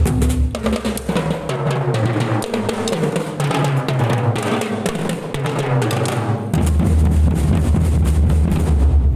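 Marching drum band practising: snare drums and bass drums playing together in a fast, dense pattern. The deep bass-drum part stops about half a second in and comes back in strongly about two-thirds of the way through.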